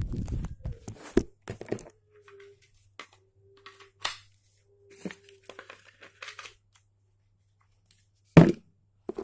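Handling noises: scattered rustles, scrapes and small clicks of objects being picked up and moved, with one loud knock about eight seconds in.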